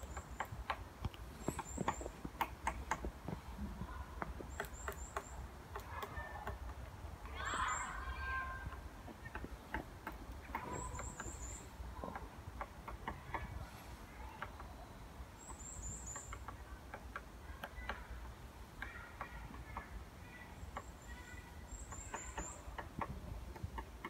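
Woodpecker pecking at a tree: irregular, sharp taps scattered throughout, not a drumming roll. High, thin bird chirps come in short runs of two to four notes every few seconds, over a low, steady rumble.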